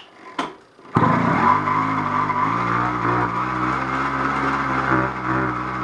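China Girl 80cc two-stroke bicycle engine suddenly engaged and turned over by the pedaled rear wheel and chain, a steady mechanical whirr. With the white wire's load (a bulb) removed, the magneto gives no spark and the engine does not start.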